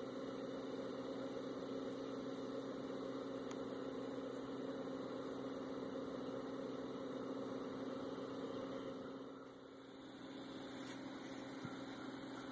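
Engine idling with a steady low hum, from a heavy vehicle working at the loaded bee truck. It dips briefly about three-quarters of the way through, then picks up again.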